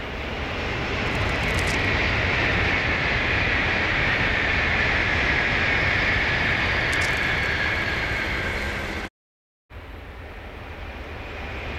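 Tokaido Shinkansen high-speed train passing at speed on a viaduct: a loud, steady rush of air and wheel noise with a high hiss that sinks slightly in pitch as it goes by. About nine seconds in it cuts off abruptly, and a new, quieter rush begins to rise as the next train approaches.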